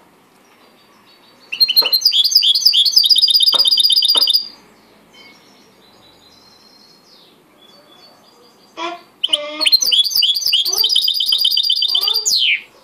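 A caged 'mixto' finch, a canary hybrid, singing two bursts of song, each about three seconds long, made of fast, repeated high chirps and trills. The first starts about a second and a half in and the second about nine seconds in.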